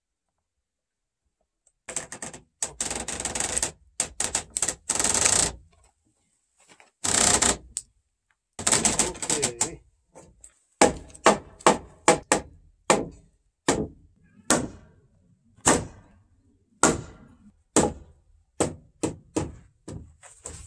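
Several bursts of rapid mechanical rattling, each lasting a second or more. These are followed by a hammer striking the wooden door-frame timbers about once a second, knocking a post into place in its sill joint.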